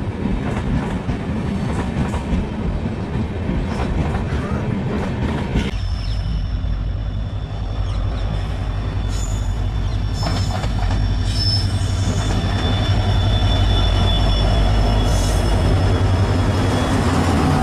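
Passenger train passing along a station platform: coaches rumbling with clicks from the wheels over rail joints. About six seconds in, after a cut, a train draws past with a steady low rumble and thin high-pitched wheel squeal, growing louder as the locomotive and luggage van come by.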